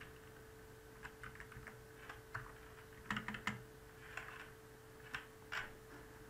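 Computer keyboard keystrokes, scattered and irregular, some in quick little runs, over a faint steady hum.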